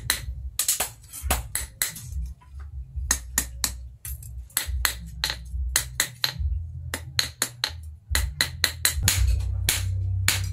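Hand hammer striking a red-hot steel billhook blade on a steel anvil block: sharp clanks, irregular, about two to three a second, with a steady low rumble underneath.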